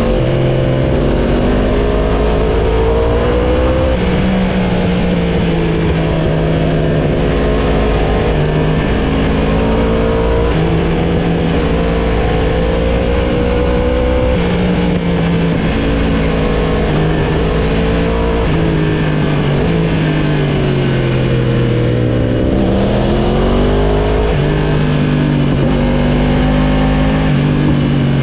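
Sportbike engine under hard riding, its pitch rising and falling with the throttle and stepping abruptly at gear changes. About three-quarters of the way through it falls away, then climbs steeply again.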